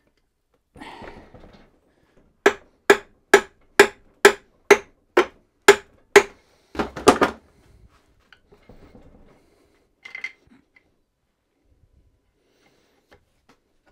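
Nine sharp hammer blows on metal at a steady pace of about two a second, each ringing briefly, then a quicker cluster of knocks: a stuck part of a seized, sludged-up Reliant engine being driven off.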